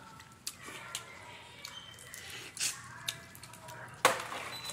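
Hands peeling boiled crawfish: small cracks and clicks of shells breaking, with wet squishing. About four seconds in there is a loud, sharp knock as a hand reaches into the aluminium foil pan.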